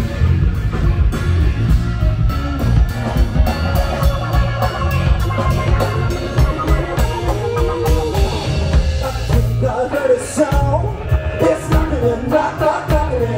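Rock music with electric guitar, bass and drums, with a voice singing over it in the second half.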